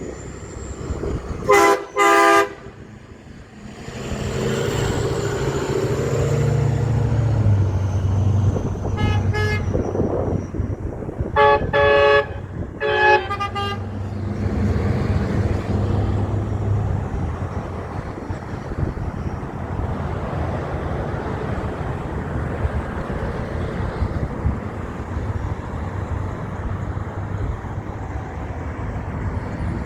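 Truck horn blown in short blasts, two close together about two seconds in and a quick run of three around twelve seconds. Under them a big truck's engine rumbles; it grows louder about four seconds in and keeps running.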